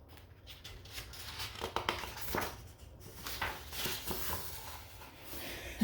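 Pages of a hardcover book being turned and handled: a run of paper rustles and soft clicks.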